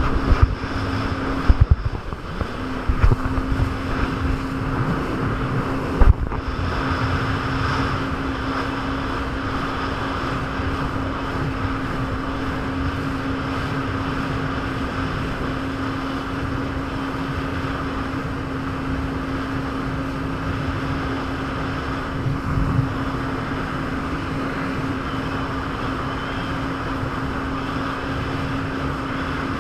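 Jet ski engine running at a steady pitch under way, with water rushing and wind on the microphone. A few sharp thumps come in the first six seconds and another about 22 seconds in.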